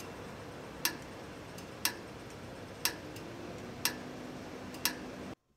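Five sharp ticks, evenly spaced about one a second, over a steady hiss of night street ambience. The ambience cuts off abruptly near the end.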